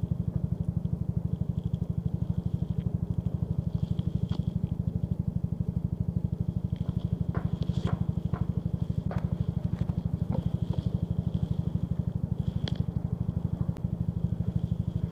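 Motorcycle engine running at low speed with a steady, rapid putter, and a few light clicks around the middle.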